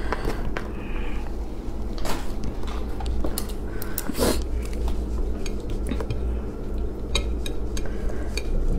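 Chopsticks clicking and scraping against a plate as they stir and pick through saucy chicken cartilage pieces, in scattered light clinks that come thicker near the end. A steady low hum runs underneath.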